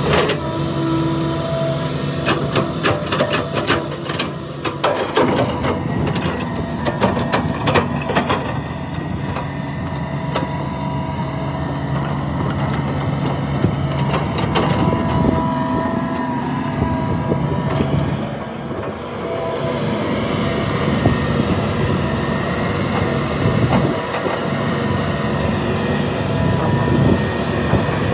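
Heavy diesel earthmoving machinery working: a steady engine drone, with a run of sharp clattering knocks between about two and eight seconds in.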